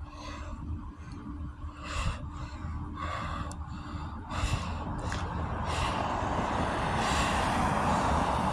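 A few short breaths close to the microphone, then a steady rushing noise that builds slowly louder through the second half.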